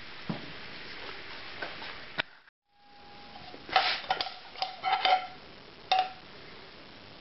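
A pan sizzling softly, then after a cut a handful of light clinks of a metal spoon against a porcelain plate, each ringing briefly.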